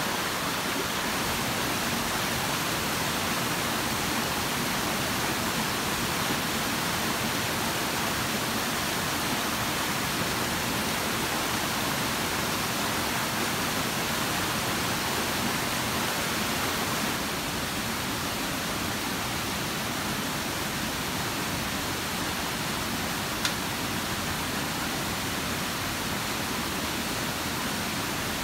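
Stream water rushing steadily over a rocky cascade, with one brief click about two-thirds of the way through.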